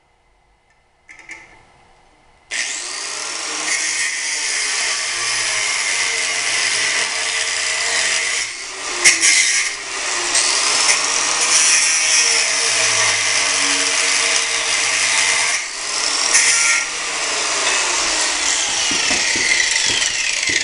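Angle grinder cutting off protruding steel bolt studs. It starts up about two and a half seconds in and runs loud and steady under load, easing off briefly twice.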